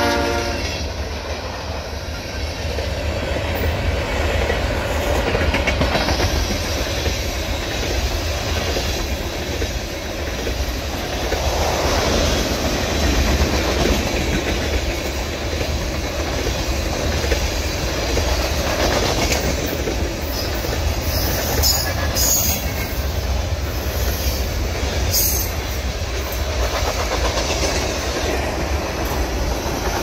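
Freight train rolling past at close range: the locomotives go by, then a long string of loaded tank cars follows, with a steady rumble of wheels on rail and clickety-clack over the rail joints.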